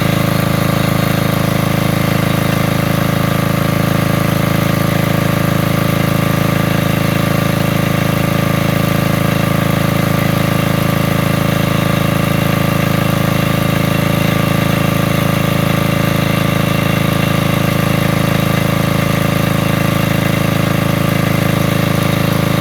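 Generator engine running at a steady, even speed, let run a little so it can cool down before shutdown.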